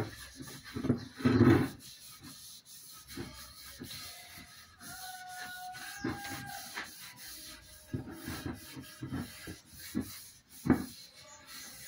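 Hand rubbing paste wax into a wooden rifle stock: irregular brushing strokes over the wood, loudest in the first couple of seconds, with one sharp stroke near the end.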